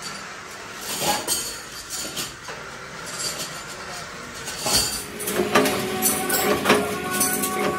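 Stamped steel oil-filter base plates clinking and knocking against metal as they are handled at a press, in scattered irregular clinks. About five seconds in, music with jingling tambourine-like percussion comes in over it.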